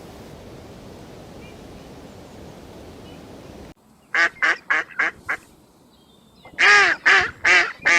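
Steady background hiss that cuts off abruptly a little under four seconds in. A bird then calls in a quick run of about five short, harsh calls, pauses for about a second, and calls again in a run of slightly longer calls near the end.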